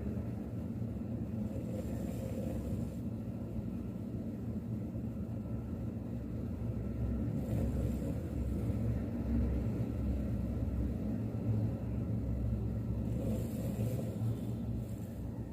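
A Malshi (Maltese–Shih Tzu mix) dog snoring in its sleep: a low, steady snore, with a brief breathy hiss three times.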